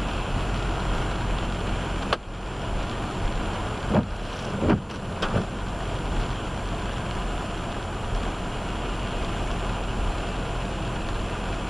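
Steady rush of heavy rain and a car moving through it, with a few short thumps between about two and five and a half seconds in.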